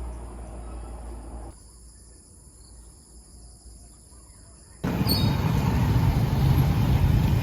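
Outdoor ambience in edited cuts: steady high insect trilling over a low rumble, then, after a sudden cut about five seconds in, a loud, steady rumbling noise like passing traffic.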